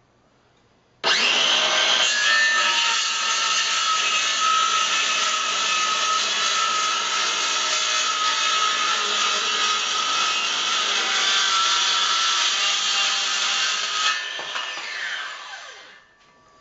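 Makita 18-volt LXT cordless circular saw starting about a second in and cutting through a timber board with a steady, loud whine for about thirteen seconds. The blade then spins down with a falling pitch and stops.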